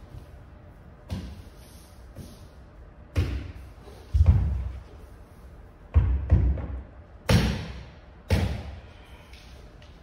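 Irregular heavy thuds and slaps of a person's hands and body on a wooden floor, about seven in all. The loudest come about four and six seconds in, and each dies away in the echo of a large hall.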